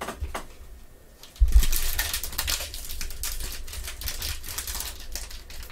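Foil trading card pack crinkling and crackling as gloved hands tear it open and handle it. After a quiet start, it begins with a bump about a second and a half in and then runs on as dense, steady crackling.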